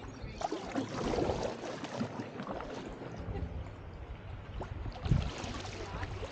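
Kayak paddle strokes in calm river water: blades dipping, with splashing and dripping water. A sharp knock about five seconds in.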